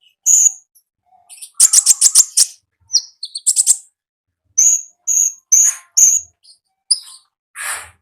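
A konin (common iora) calling: short, sharp, high chirps, with a fast, stuttering trill about one and a half seconds in and a harsher, rougher note near the end.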